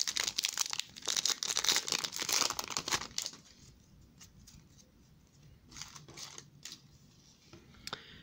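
Foil wrapper of a football trading-card pack crinkling and tearing open for about three seconds, then a few faint rustles as the stack of cards is handled.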